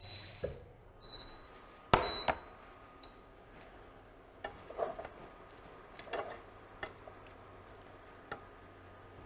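A kitchen tap runs briefly, then there is a sharp clunk about two seconds in. After that a wooden spoon stirs a saucepan of chopped apples and leeks, with soft scrapes and a few knocks on the pot.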